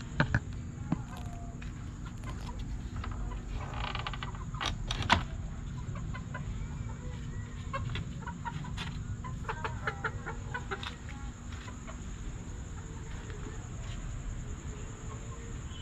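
Chickens clucking in short calls, over a low steady rumble, with a few sharp knocks; the loudest knock comes about five seconds in.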